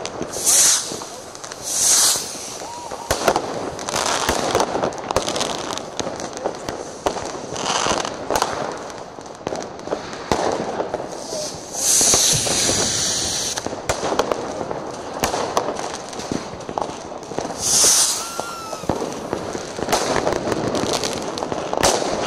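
New Year's Eve fireworks: a dense, irregular barrage of firecracker and rocket bangs, with several longer hissing bursts near the start, about twelve seconds in and about eighteen seconds in.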